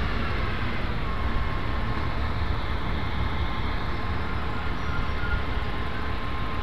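Steady low rumble of a truck-mounted crane's engine running, with a faint steady whine that starts about a second in.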